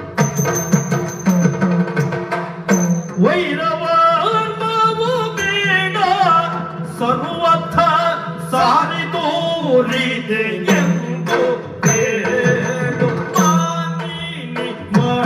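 Yakshagana music: chende and maddale drums play, and about three seconds in a male Bhagavata's voice enters, singing a heavily ornamented, sliding melody over a steady drone.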